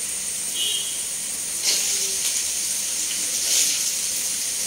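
Food sizzling in hot oil in a frying pan, a steady hiss with louder surges about two seconds in and again a second and a half later.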